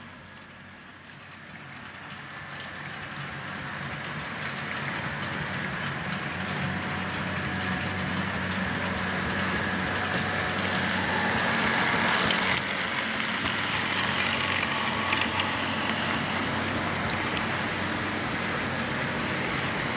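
HO scale model train, a diesel locomotive pulling hopper cars, running along the track: a steady motor hum and wheel-on-rail noise that grows louder over the first dozen seconds as the train comes close, then holds steady.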